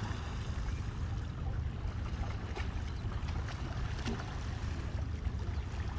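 Steady low rumble of wind on the phone's microphone over the wash of water against breakwater rocks, with a few faint clicks near the middle.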